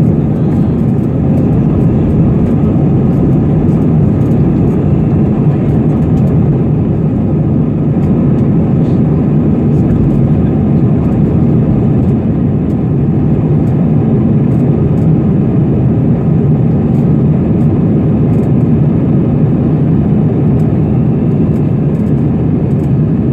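Airliner's jet engines at takeoff power: a loud, steady low rumble that holds without rising or falling.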